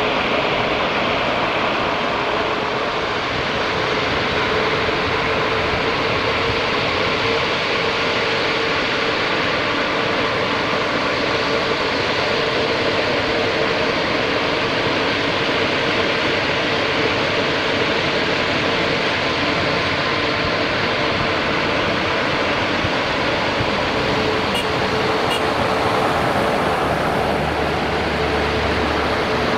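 Jet airliner engines at takeoff power: a loud, steady rush of noise with a steady tone running through it, and a low hum coming in near the end.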